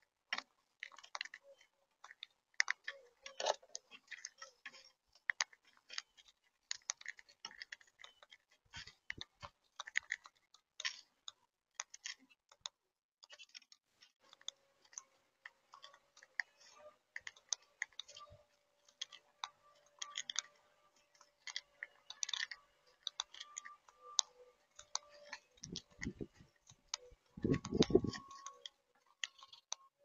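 Monk parakeets feeding at a seed tray close to the microphone: a rapid, irregular run of sharp clicks and crunches as their beaks crack seed shells and pick through the seed. A louder low rustling comes near the end.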